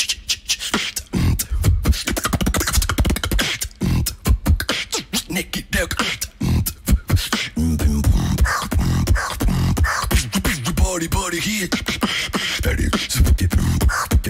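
Solo human beatbox routine at a microphone: quick rhythmic kick and snare strokes, then from about halfway deep held bass notes with wavering pitched vocal sounds over them, the pattern shifting between time signatures.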